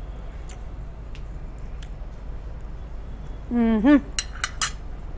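Metal fork tapping and clinking against a bowl and plate: a few faint taps, then three sharp clinks. Just before the clinks, about three and a half seconds in, a woman gives a short 'mmm' hum while tasting food.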